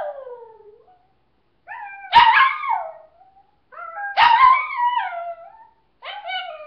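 A girl imitating a dog's howl and her pet dog howling back, trading drawn-out howls. Three long howls, each starting on a steady note and sliding down in pitch at the end, with the tail of an earlier one fading out at the start.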